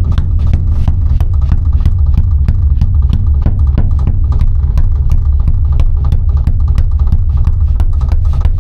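Background music with a heavy bass and a steady, fast drum beat.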